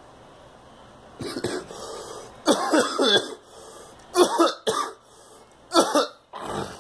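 A girl coughing repeatedly in four or five short fits, starting about a second in, each fit a few quick coughs.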